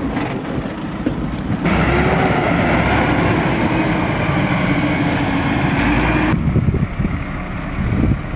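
Heavy vehicle engine running, with the sound changing abruptly about one and a half seconds in and again about six seconds in.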